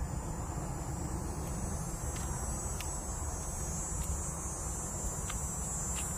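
Wind rumbling on the microphone under a steady, high-pitched insect chorus, with a few faint clicks.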